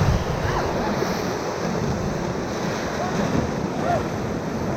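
Whitewater rushing around a raft in a rapid, with wind buffeting the microphone and a few faint voices now and then.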